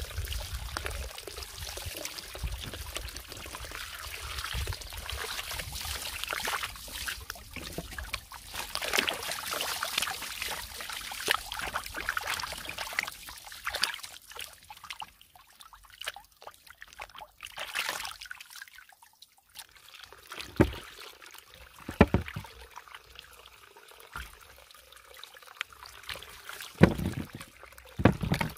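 Water pouring from a pipe into a plastic basin, splashing as hands rub and turn star fruit in the water. In the second half the flow dies away and a few sharp splashes stand out, four of them, loud and short, as star fruit are dropped into a bowl of water.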